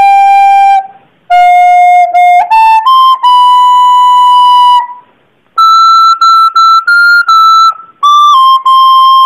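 Recorder playing a slow melody one note at a time, in short phrases with brief pauses for breath. It holds long notes, steps upward, then plays a higher run of repeated, separately tongued notes before settling back onto long held notes.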